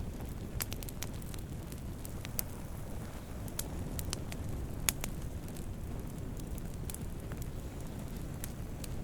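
Campfire of burning wood crackling over a steady low rumble of the flames, with scattered sharp pops and snaps, one louder pop about five seconds in.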